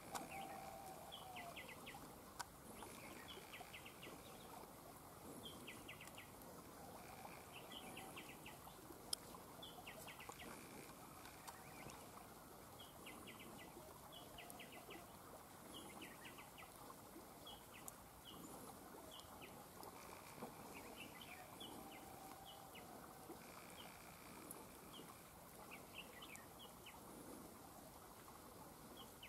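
Red-whiskered bulbuls calling, faint, in short quick clusters of chirping notes every second or two. A rooster crows faintly twice, at the start and about two-thirds through.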